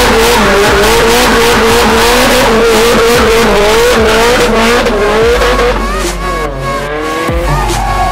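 Nissan Silvia S15 drift car's turbocharged SR20DET engine held at high revs, its pitch wavering rapidly up and down, over the screech of the rear tyres spinning in smoke.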